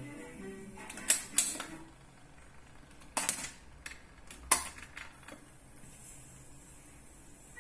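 Clicks and knocks from the Montgomery Ward Airline GEN 6229A record player as it is handled or its mechanism moves between plays: half a dozen sharp clicks spread over a few seconds after the music stops.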